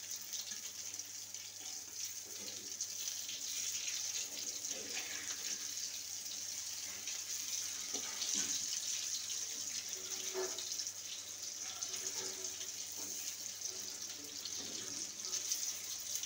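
Elephant foot yam fritters (ol bora) sizzling steadily in hot oil in a metal karahi. A metal spatula scrapes faintly against the pan a few times as the fritters are turned.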